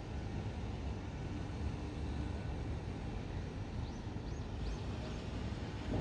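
Steady low rumble of distant city traffic, with a small bird giving four short high chirps in quick succession about four seconds in.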